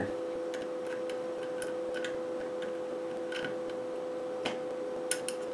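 Small, irregular clicks and taps of needle-nose pliers and fingers against plastic and metal parts as a tiny coax plug is worked into a flat connector on a radio's circuit board. About half a dozen clicks, unevenly spaced, over a steady electrical hum.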